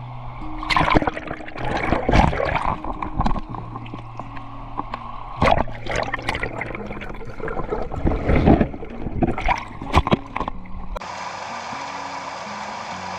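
Background music with sustained low notes, mixed with irregular splashy bursts of noise like water. The bursts stop abruptly about 11 seconds in, leaving the music over a steady hiss.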